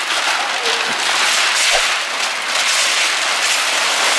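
Large sheets of pink wrapping paper being ripped off a big cardboard box and crumpled: a loud, steady crackling rustle and tearing.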